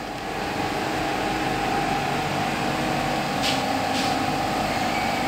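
Steady machine hum with a held whining tone, and two faint light clicks about three and a half and four seconds in.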